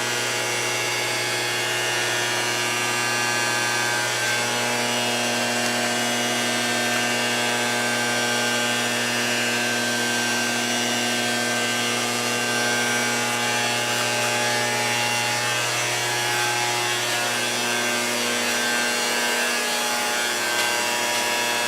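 A power tool or shop machine running steadily with a constant hum and several held tones, its pitch pattern shifting a little a few times.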